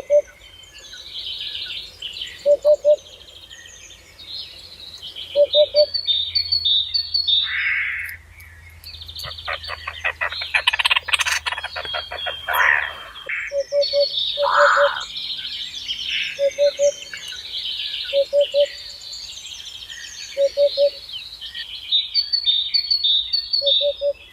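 Several birds singing and chirping. A low, short call of two or three quick notes repeats every two to three seconds, and a rapid rattling trill sounds around the middle.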